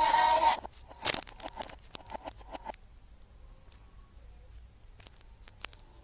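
An edited children's song with a synthetic singing voice stops abruptly under a second in. A sharp click follows, then a spell of crackling clicks and glitches, and then only a few faint ticks.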